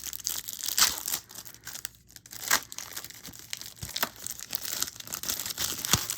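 Packaging crinkling and rustling as concept art cards are taken out and handled, in irregular crackles with a few louder ones.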